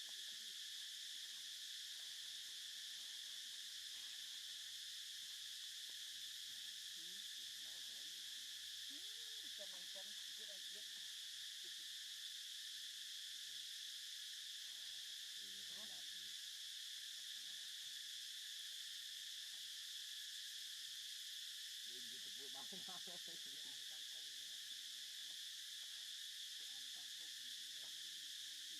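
Steady high-pitched drone of an insect chorus, with a few faint brief pitched calls lower down, the clearest about twenty-two seconds in.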